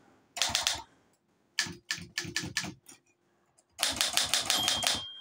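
Olympia SG1 manual office typewriter being typed on: the keys and typebars strike in quick clusters, a short burst, then a handful of separate strokes, then a fast run of strokes. A thin high ring starts near the end.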